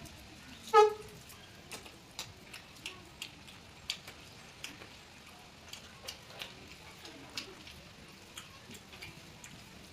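Eating sounds: scattered sharp clicks and smacks of chewing and of food and utensils being handled while chicken curry is eaten. There is one short pitched sound about a second in.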